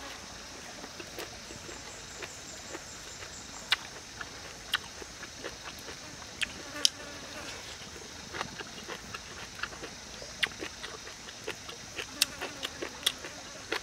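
Eating sounds: irregular sharp clicks and smacks of chewing and chopsticks, over a steady high-pitched insect drone.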